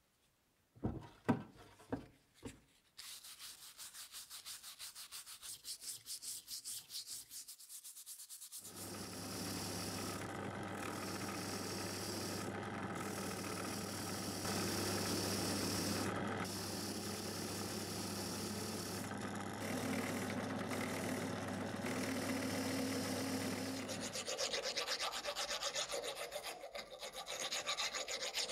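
A few knocks, then fast rhythmic scratching, then a drill press motor humming steadily while its spinning wire wheel scrubs rust off an old steel hammer head. The scrubbing breaks off briefly several times as the head is lifted away, and the motor stops about four seconds before the end, giving way to a quicker rasping scrape.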